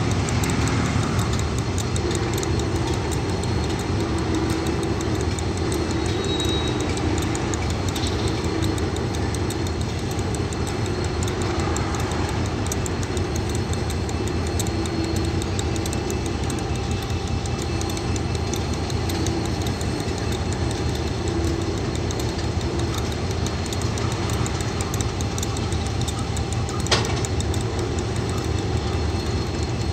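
KiwiRail DX class diesel-electric locomotive idling with a steady low rumble as it is turned on a railway turntable, with a single sharp knock near the end.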